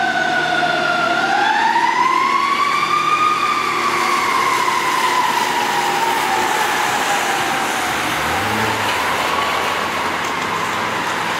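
Federal Q2B mechanical siren on a fire engine, winding back up about a second in, peaking, then slowly coasting down in pitch with a small swell near the end as it grows more distant. Steady tyre hiss from traffic on a wet road lies underneath.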